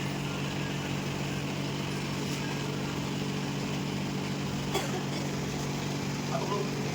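A steady low hum with a sharp click once, just under five seconds in.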